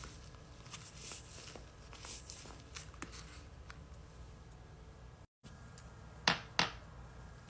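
Faint rustling and crinkling of a handmade paper squishy being squeezed and handled, with scattered small clicks and two sharp taps in quick succession near the end.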